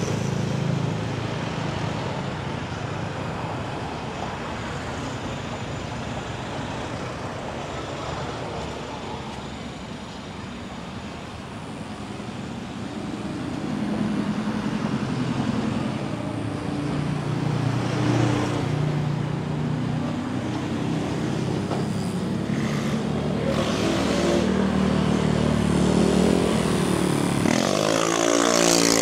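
Continuous street traffic noise, with cars and motorbikes running past. Steady engine hum joins about halfway through, and near the end a vehicle engine revs up with rising pitch as it pulls away close by.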